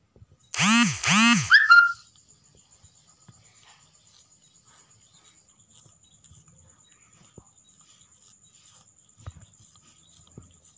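A cat meows twice in quick succession, each call rising and falling in pitch. A short higher squeak follows, and after that there is only faint licking as the kitten washes its paw.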